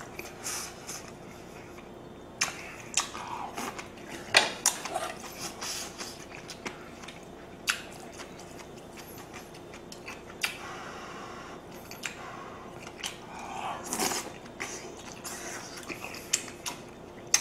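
Close-up eating sounds: a person chewing and slurping ramen and pan-fried jeon in spicy stew, with scattered sharp clicks of a spoon, ladle and bowls. A faint steady hum runs underneath.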